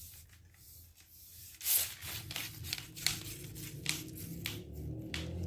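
Hands handling a fishing pole, giving a series of brief rubbing and scraping noises, the loudest about two seconds in.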